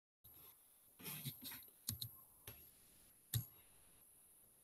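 A few faint, scattered clicks at a computer, about five in all, the sharpest about two-thirds of the way through.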